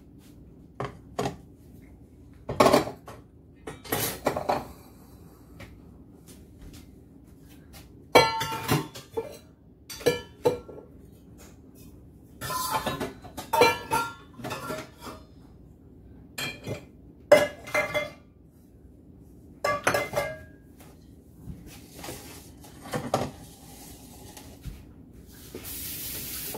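Glass jars and plastic canisters being picked up and set down on a granite countertop: a string of separate clinks and knocks, some ringing briefly.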